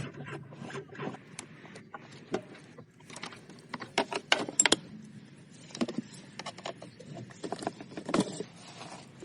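Irregular clicks and knocks, some sharp and loud, with quieter stretches between: the clatter of hand work on small hard parts, with a burst of several loud clicks about four to five seconds in and another near eight seconds.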